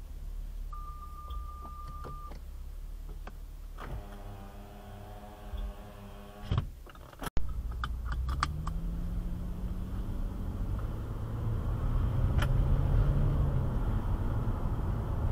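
A car's engine and tyre noise heard from inside the cabin as it gathers speed, its engine note rising and the road noise growing louder after a sudden break in the recording about seven seconds in. Before that, there is a steady beep lasting about a second and a half, then a humming tone for a couple of seconds.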